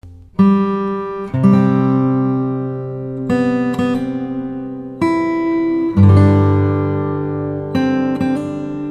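Acoustic guitar music: strummed chords struck about once a second, each ringing on and fading before the next.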